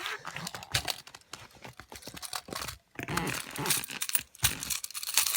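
Irregular plastic clicks, knocks and rustling from hands handling a LEGO brick vending machine.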